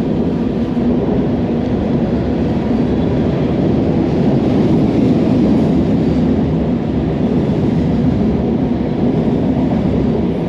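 Steady, loud rushing of a fast river current, a constant low roar with no breaks.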